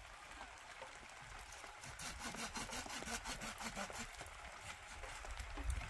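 A quick, regular series of rasping strokes, about five or six a second, starting about two seconds in and thinning out after about four and a half seconds.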